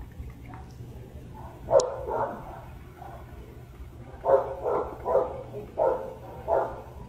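Dog barking in short calls: two or three around two seconds in, then a run of five from about four seconds in, over a steady low hum.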